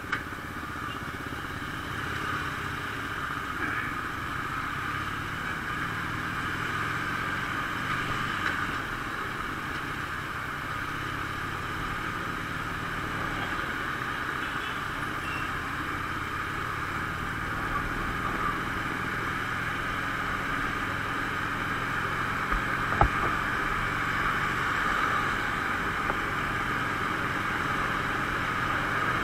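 Motorcycle at cruising speed: steady wind and road noise over the Harley-Davidson SuperLow's V-twin engine running evenly. A single short knock about three-quarters of the way through.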